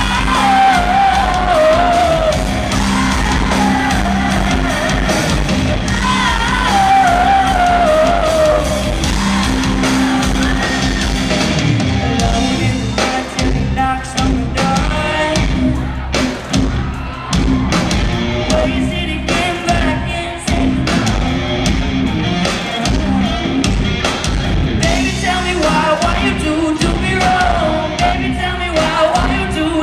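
Live rock band with a female lead vocal: electric guitar, bass guitar and drum kit playing under the singing, with the drum hits standing out more from about twelve seconds in.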